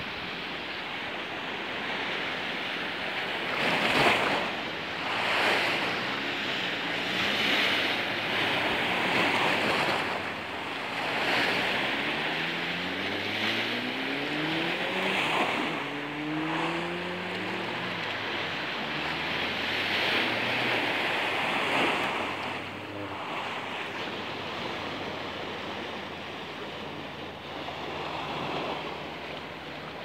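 Sea waves surging over and draining off a sloping concrete sea wall, a rushing surf that swells and eases every couple of seconds.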